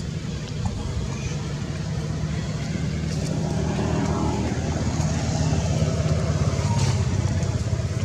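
Low, steady engine rumble of a motor vehicle, growing a little louder about halfway through.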